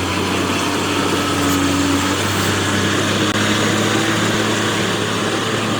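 Electric pressure washer running: a steady motor hum under the hiss of the water jet.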